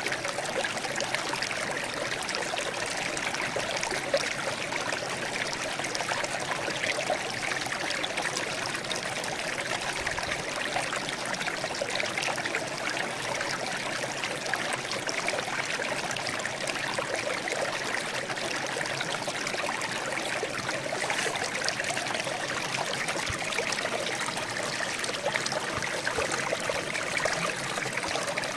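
Water trickling and babbling steadily, a continuous light splashing with little deep sound beneath it.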